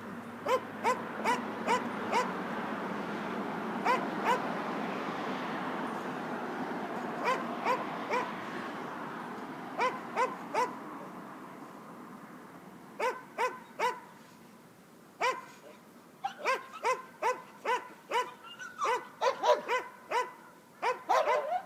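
A dog barking repeatedly in short clusters of sharp barks, coming faster and closer together in the last few seconds. Under the first half a rushing noise swells and then fades away.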